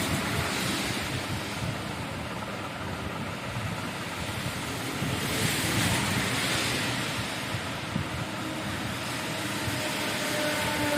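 Steady rushing noise that swells briefly twice, like wind on the microphone.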